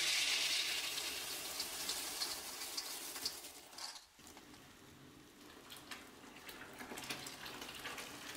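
Water poured onto hot roasted soybeans, hissing loudly and fading over about four seconds with small crackles. After a sudden drop, a quieter stretch of faint trickling and crackling follows.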